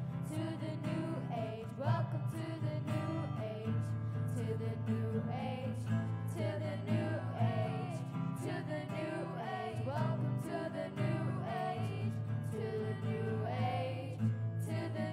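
Acoustic guitar accompanying voices singing a song.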